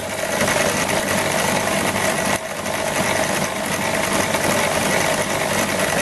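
Small bench linisher (belt sander) with an electric motor, switched on and running freely with no workpiece: a steady motor hum and belt whir that comes up to speed within the first half second. The belt is a re-glued one on a test run, and its glued join holds.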